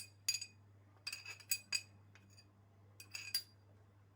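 A spoon clinking against a dish in short clusters of sharp taps with a brief high ring, as spoonfuls of grated garlic and ginger are worked into a bowl of yogurt.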